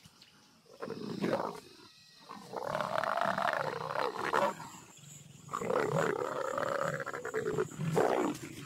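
Leopards growling during mating: a short growl, then two long drawn-out growls that rise and fall in pitch.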